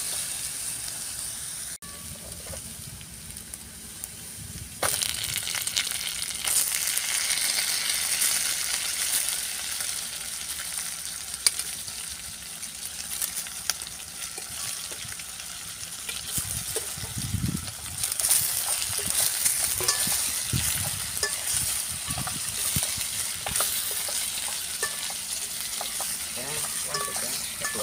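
Food frying in oil in a steel bowl: a steady sizzle that gets louder about five seconds in. A metal spoon stirs it, with occasional clinks and scrapes.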